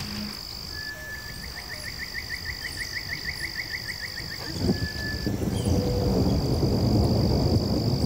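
Rainforest ambience of frogs and insects calling: a steady high-pitched trill and a rapid pulsed call of about five to six pulses a second that lasts a few seconds. A low rushing noise joins about halfway through.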